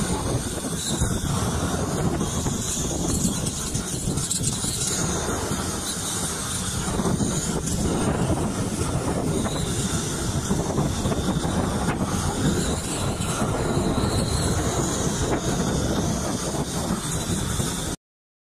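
Long-handled gas roofing torch burning steadily with a loud, even rushing noise, strongest in the low end, as it heats a torch-on bitumen membrane roll. It stops abruptly near the end.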